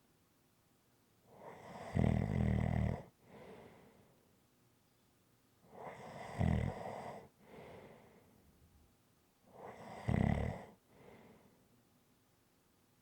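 A person snoring in a steady rhythm: three loud snores about four seconds apart, each followed by a softer, shorter breath.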